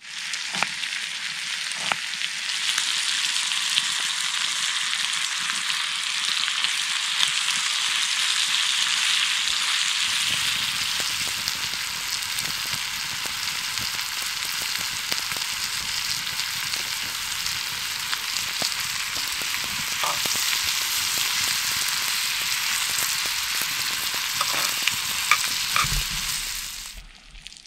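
Bacon frying in a cast-iron pan: a steady sizzle with small pops and crackles scattered through it.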